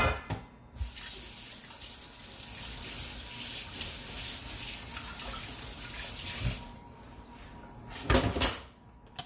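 Kitchen tap running steadily for about six seconds, then turned off, with a knock at the start and a couple of clattering knocks near the end.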